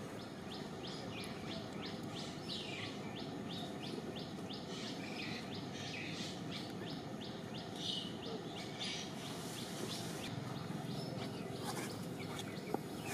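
A bird calling with a fast, even series of short high chirps, about three a second, over steady background noise. The chirping stops about ten seconds in.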